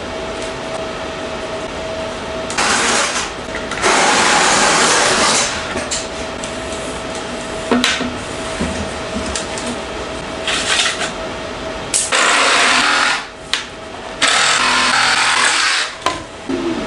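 Handheld cordless power saw cutting through plastic PVC pipe in about five runs of one to two seconds, with short pauses between them.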